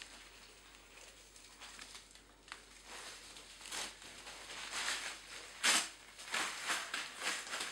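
Packaging being handled and opened: rustling, scraping and crinkling noises that come thicker and louder in the second half, with one sharper, louder rustle about three quarters of the way through.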